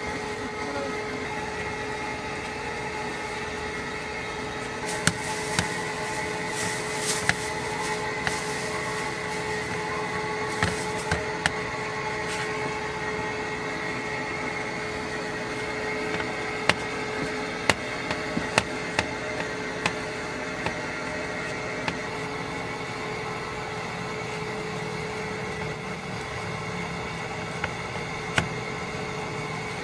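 Steady hum of kitchen machinery, with sharp metallic clicks and taps of a fork and pie tins against a steel sheet tray as pie edges are crimped. The clicks come in two clusters, one in the first half and one just past the middle.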